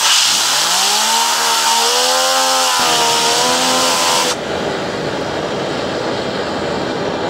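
Compressed air hissing from a blow-gun nozzle onto a plastic fidget spinner, which whirs with a whine that rises in pitch as it speeds up and then holds. About four seconds in the air hiss cuts off, leaving the steady rush of a gas torch flame.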